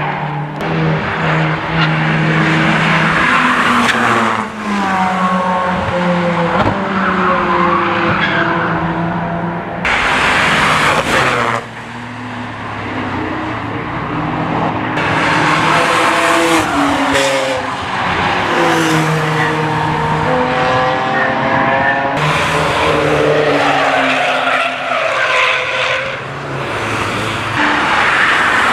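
Cars passing one after another on a race circuit, their engines revving hard: each note climbs as the car accelerates, drops at a gear change, and climbs again.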